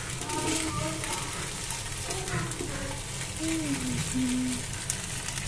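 Slotted metal spoon stirring pasta in a steel frying pan, with light scraping and clicks against the pan and faint frying. Faint voices in the background.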